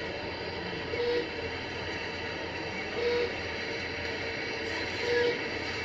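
Steady hiss with a short, flat electronic beep about every two seconds, like a hospital monitor or other bedside medical machine.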